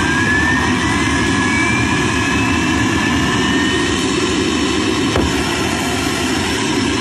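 Homemade turbojet engine running on a test stand just after ignition: a steady loud roar, with a whine that rises steadily in pitch as the engine spools up.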